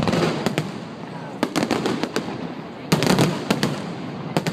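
Fireworks display: aerial shells bursting in quick clusters of sharp bangs, the densest and loudest cluster about three seconds in.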